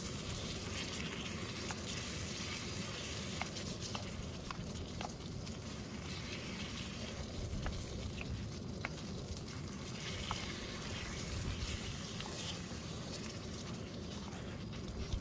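Chicken and sausage stew sizzling and bubbling in a small stainless steel pan on a portable gas camping stove, stirred with a utensil that gives scattered light clicks against the pan.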